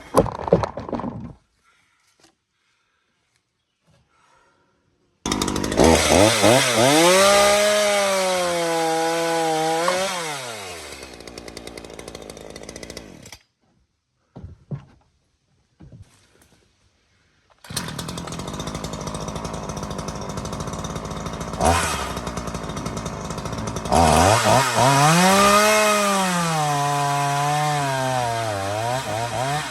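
Two-stroke chainsaw revved to full throttle about five seconds in, its pitch sagging and recovering as it works through wood, then stopping abruptly about 13 seconds in. It runs again from about 18 seconds at a lower speed, then is revved hard once more near the end, its pitch dipping under load before easing off.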